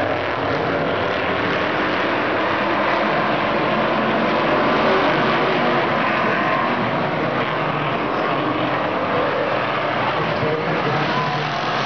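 Stock car engines from a pack of cars circling an oval track, heard together as a loud, steady engine noise.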